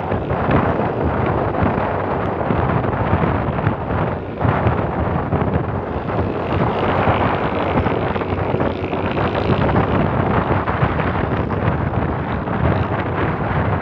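Wind rushing over the microphone of a moving motorcycle, a loud steady buffeting mixed with road noise, with a brief lull about four seconds in.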